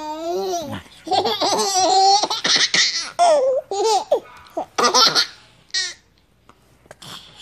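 A toddler laughing in repeated bursts, with bits of babble, breaking off into a short pause near the end.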